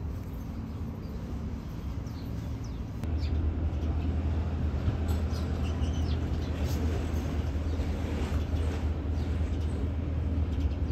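Outdoor street ambience: a steady low rumble of traffic with birds chirping. The rumble grows louder about three seconds in.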